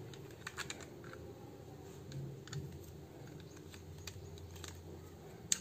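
Small plastic clicks and taps as an action camera is worked into its plastic mount and buckle, a few scattered through and one sharper click near the end.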